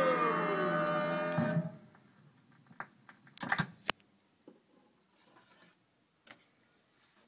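Music with a guitar playing from a Philips Norelco Mignon car record player, stopping about two seconds in. A few faint clicks and a short rattle follow, the sharpest click about four seconds in.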